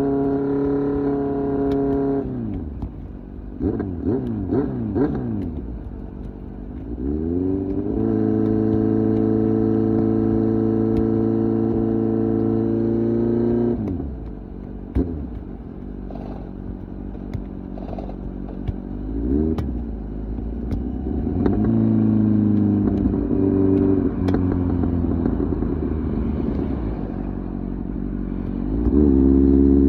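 Kawasaki Z900's 948 cc inline-four through an SC Project exhaust, ridden at road speed: the revs hold steady, drop off about two seconds in, then come several quick throttle blips. The engine climbs again and holds high revs for about six seconds before rolling off, with further blips and another rise near the end.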